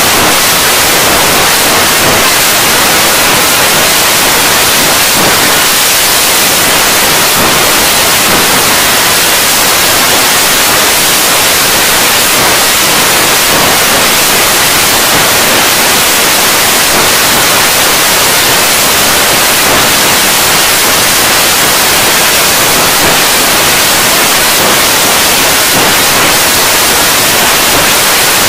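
Loud, steady static like white noise, even throughout and strongest in the high frequencies; no tune or voice comes through.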